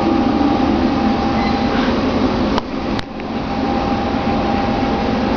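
Steady hum of shop machinery with two steady whining tones over it. Two sharp clicks come about two and a half and three seconds in, and the hum dips briefly after each.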